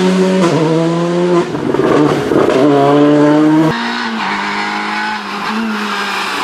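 A Volkswagen Polo R5 rally car's engine revs hard, its pitch climbing and dropping back through gear changes, with a rough, noisy stretch between shifts. Near four seconds in, the sound cuts to a quieter engine running at steadier revs as a Renault Clio rally car approaches.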